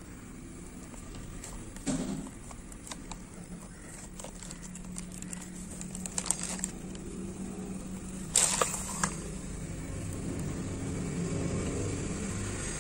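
Handling noise of a leather-strapped wristwatch being turned over in the hands: scattered clicks and light knocks, the loudest a short crackly burst about eight seconds in, over a steady low hum.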